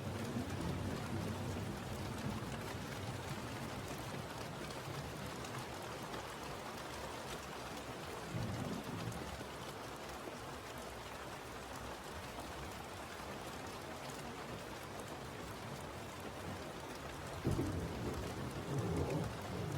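Steady rain with rolls of thunder: a short low rumble about eight seconds in and a louder one that starts suddenly near the end.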